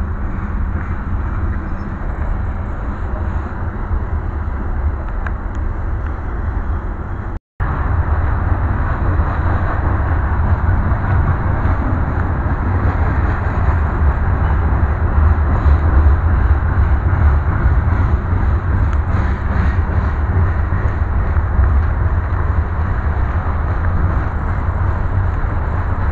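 Coal train cars rolling past, a steady deep rumble and rush of steel wheels on rail. The sound cuts out for a moment about seven and a half seconds in, then resumes a little louder.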